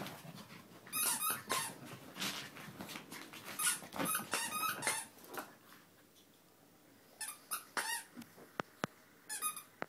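Chihuahua puppies play-fighting, giving short high-pitched yips and squeals in several quick clusters, with a quieter stretch about six seconds in.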